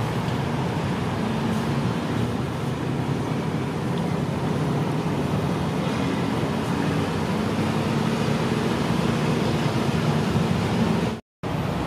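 Diesel railcar idling at the platform: a steady low engine hum over a continuous wash of traffic noise. The sound drops out for a moment near the end.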